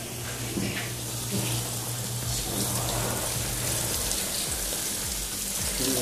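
Water from a garden hose running into the wash tub of a twin tub washing machine, splashing onto the clothes as the tub fills for the rinse.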